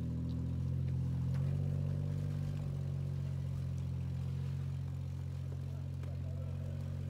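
Jeep engine running steadily, a low drone, as the Jeep crawls slowly over snow-covered rocks.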